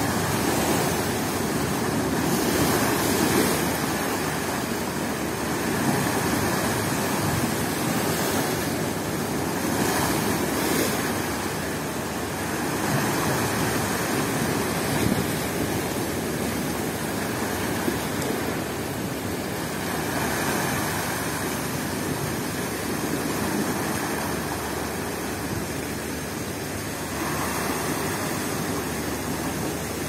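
Rough storm surf breaking against a low concrete jetty and washing across it, with seawater spilling into a hole in the broken concrete. A steady rush of water that swells and eases every few seconds.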